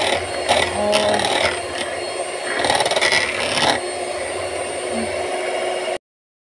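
Electric hand mixer with twin beaters whipping cake batter in a plastic bowl: a steady motor whir with the beaters churning through the batter. It cuts off suddenly about six seconds in.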